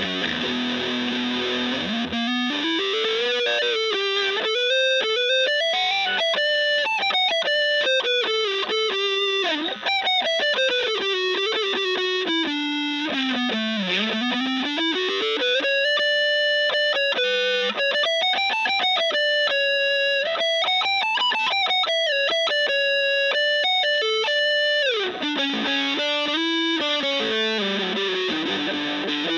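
Electric guitar with three single-coil pickups wired in series, played through distortion. A note is held for about two seconds, then a fast single-note lead line runs up and down the neck.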